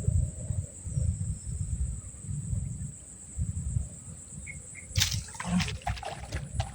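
Gusty wind rumbling on the microphone, under a steady high insect drone. About five seconds in, a run of sharp clicks and rustles begins.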